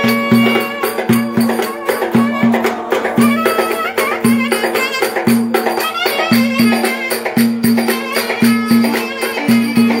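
Live Turkish folk music: a davul bass drum beats heavily about once a second under a high, wavering melody line.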